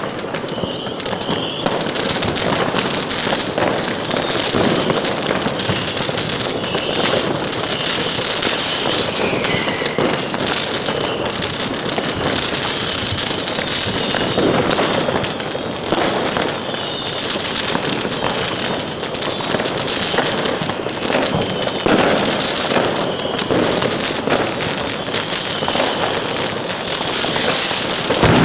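Many fireworks going off at once: a dense, unbroken run of bangs and crackling, with short high whistles now and then.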